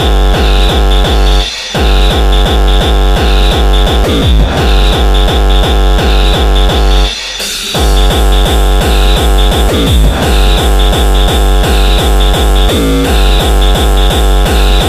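Hard electronic dance track with a pounding, distorted kick drum on a fast steady beat under harsh synth sounds. The kick drops out briefly twice, a little over a second in and again about seven seconds in.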